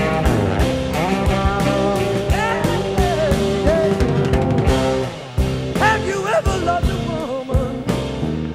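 Rock music with electric guitar and drums: a steady drum beat under bending guitar lines.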